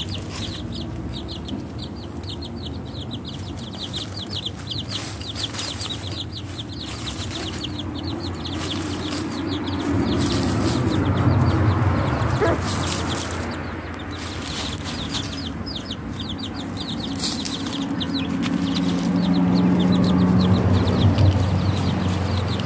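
Chicks peeping in quick, high, repeated notes, with a hen clucking among them. A low steady hum swells twice, around the middle and near the end.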